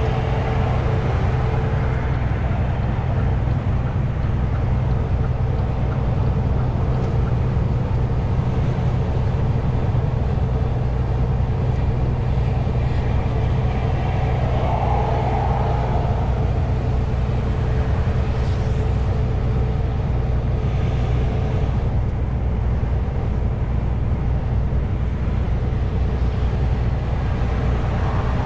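Truck engine and road noise while driving: a steady, loud low drone.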